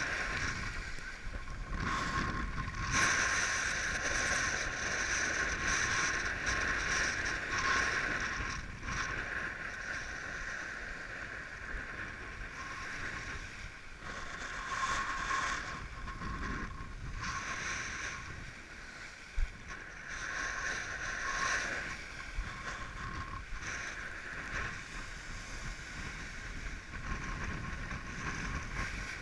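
Windsurf board planing through shallow surf: water rushing and spraying along the board with wind noise, swelling and easing every few seconds. One sharp knock about two-thirds of the way through.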